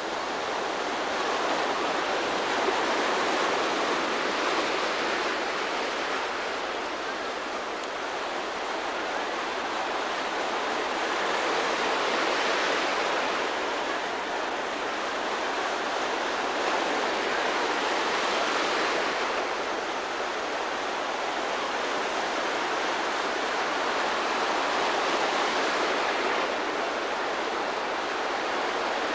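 Ocean surf breaking and washing over shallow water: a continuous rush that swells as each wave breaks, about every six or seven seconds.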